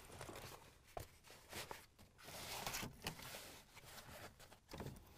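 Faint rustling and brushing of a fabric Covercraft Marathon seat cover as it is stretched over a seat back and smoothed by hand, with a few soft clicks.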